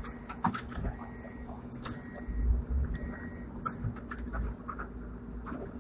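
Hong Kong double-deck tram running, heard from inside at the front: a low rumble of wheels on rail with a steady hum, and scattered rattles and knocks from the car body. A short high beep repeats about once a second over the first few seconds.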